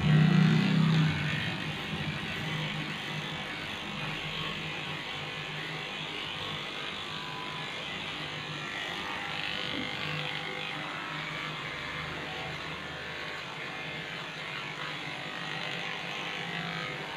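Electric pet hair clipper running steadily with a buzzing hum as it shaves a Shih Tzu's coat, loudest for about the first second.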